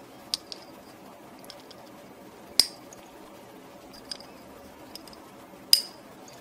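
Small diagonal cutters snipping off component leads on a circuit board: two sharp snaps, about two and a half seconds in and near the end, with a few lighter clicks between.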